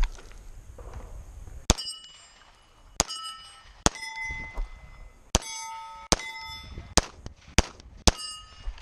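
Pistol shots, eight in about six and a half seconds, most followed by the bright ring of steel plate targets being hit.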